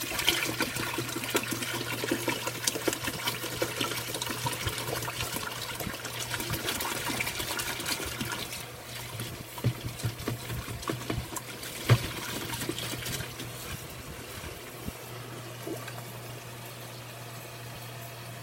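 Cold water running from a kitchen tap into a sink while milk bottles are rinsed, with many small knocks and clinks of the bottles. The water grows softer about halfway through, and one sharp knock stands out a little after that. A steady low hum lies underneath.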